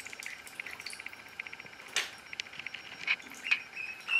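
Indian Runner ducklings trilling: a fast, even run of soft high peeps, ending in a few short rising peeps. A few sharp clicks from the tub, the loudest about two seconds in.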